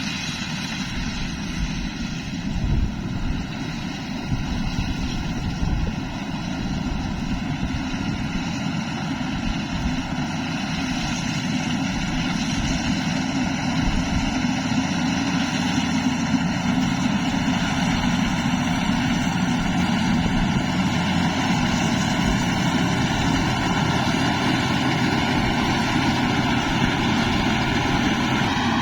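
Rice combine harvester running, a steady machine sound that grows slowly louder over the first half.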